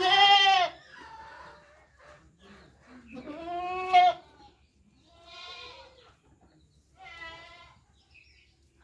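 Goat bleating four times, a couple of seconds apart. The first two calls are the loudest and each rises and falls in pitch; the later two are fainter and quaver.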